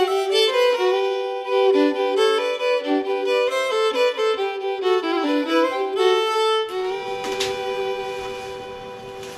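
Two violins playing a fiddle tune in harmony, ending on a long held double note that fades out over the last few seconds.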